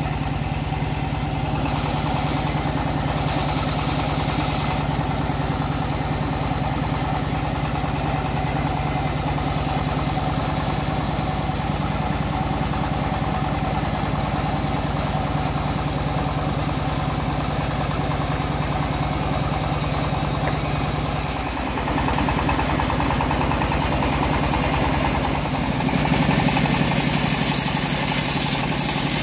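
Engine of a homemade bandsaw sawmill running steadily. Near the end it grows louder and harsher as the band blade starts cutting into a teak log.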